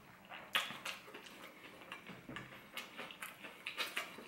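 Close-up chewing of a mouthful of popcorn chicken wrap: a string of irregular small wet clicks from the mouth and food, with no rhythm.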